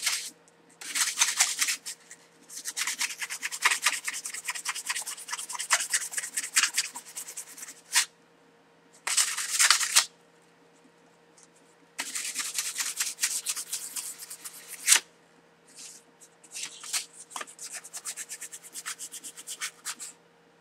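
Stainless steel butter knife being hand-sanded with 150-grit sandpaper to clean off light rust. The rasping strokes come fast and back-and-forth in several runs, with short pauses between them.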